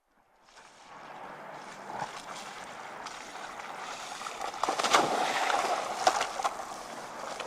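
Rushing, water-like noise fading in at the opening of a dance-pop track, with a few louder surges about five and six seconds in, before the music proper starts.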